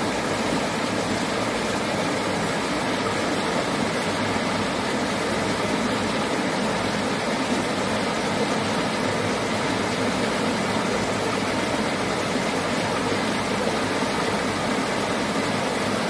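Floodwater pouring over a concrete weir, a steady unbroken rush of churning water.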